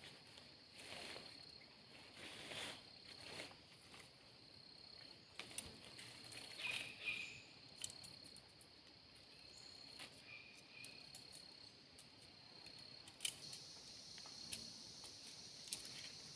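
Faint insects chirring in forest, a steady high drone. It is broken by scattered light clicks and rustles, and by two short chirps, about seven and ten seconds in.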